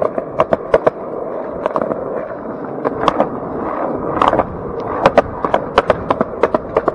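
Skateboard wheels rolling over a concrete sidewalk: a steady gritty rumble broken by sharp clacks, several a second, as the wheels cross the joints between the slabs.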